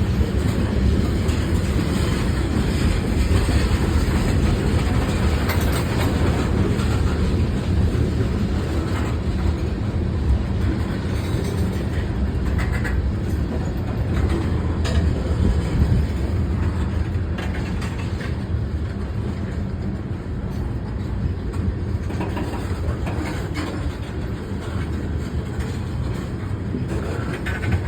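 CSX local freight train rolling past, a steady rumble of steel wheels on rail with occasional clacks.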